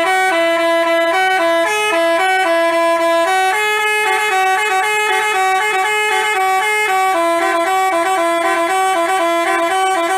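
Bus telolet basuri horn, a multi-tone musical air horn, loudly playing a quick tune of stepped notes; it cuts off near the end.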